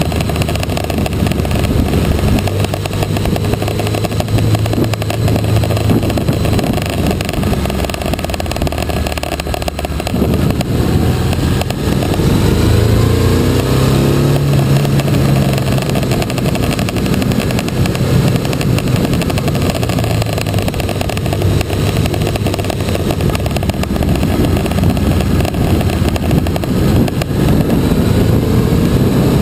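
Motorcycle engine running on the move, with a rushing haze over it. About ten seconds in the engine note dips briefly, then climbs again as the bike pulls away.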